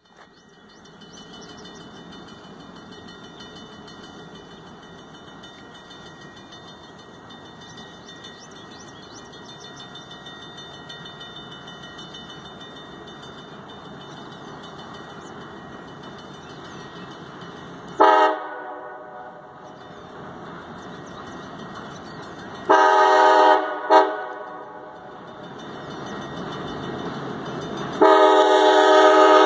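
A diesel locomotive approaching a grade crossing and sounding its air horn in the crossing pattern. There is a blast a little past halfway, a long blast, a quick short toot, and a final long blast held at the end. Underneath is the train's low steady rumble, slowly growing louder.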